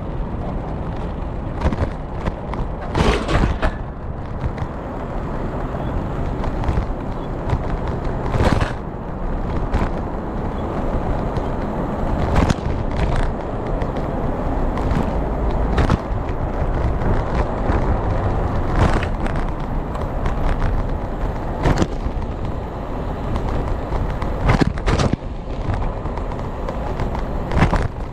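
A bicycle rolling over pavement: a steady rumble from the wheels, broken by frequent sharp knocks and rattles as it goes over bumps.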